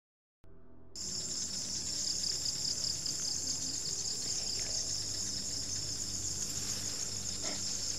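Steady, high-pitched chorus of insects, cutting in from silence about a second in.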